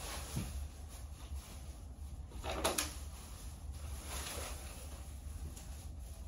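Trash being gathered by hand: a few short rustling and scraping handling noises, the loudest about two and a half seconds in and a weaker one about four seconds in.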